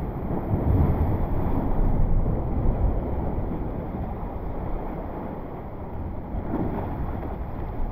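Rushing wind and sea-water noise on the microphone, surging and easing in gusts.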